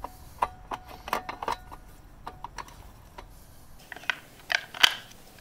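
Clicks and scrapes of an air-conditioner disconnect's pull-out block being pushed back into its metal box. After about four seconds, a plastic handheld remote control with batteries fitted is handled, giving a few sharper clicks, the loudest near the end.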